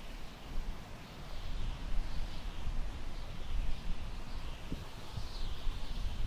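Summer wind blowing through tall grass, with a gusty low rumble of wind buffeting the microphone. A high chirping repeats about twice a second.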